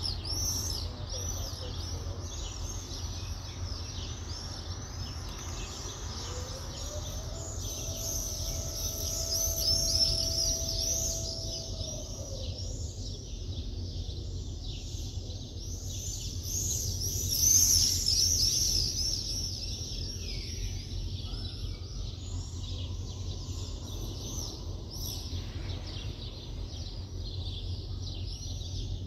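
Many small birds chirping and twittering at once in a dense morning chorus, over a steady low rumble of city background noise. About seven seconds in, a faint tone rises, holds for about five seconds and falls away.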